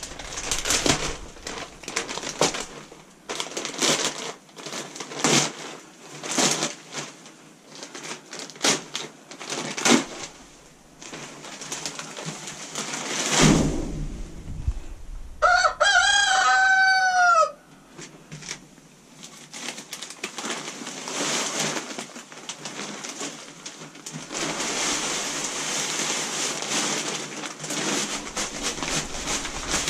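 A rooster crows once, loudly, for about two seconds midway through. Around it are repeated rustling and scraping of dry bedding being handled, and near the end a steady hiss of wood shavings being shaken out of a bag onto the coop floor.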